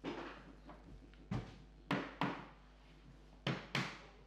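White rubber mallet knocking a wooden parquet plank tight against the previous row: about six dull knocks at an uneven pace, several coming in quick pairs.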